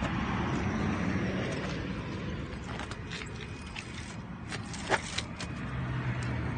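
BMX bike rolling on its free coaster hub: steady rolling noise with no freewheel clicking, the hub silent as it coasts, and a couple of light knocks about five seconds in.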